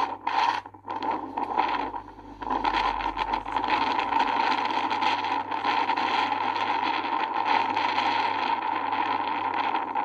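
A steady rushing noise with no speech. It dips briefly just under a second in and again around two seconds in.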